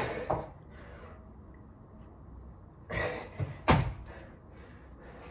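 Thuds and hard breaths from a person doing three-pump burpees on an exercise mat: a noisy burst at the start, another about three seconds in, then one sharp, heavy thud just after it, the loudest sound, as the body drops to the mat.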